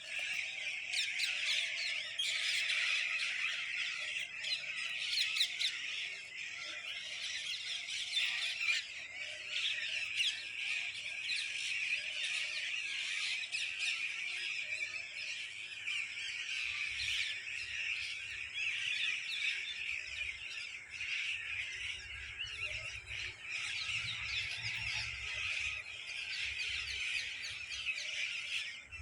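A flock of parrots chattering and squawking, many short calls overlapping into a continuous din. A faint low rumble joins about halfway through.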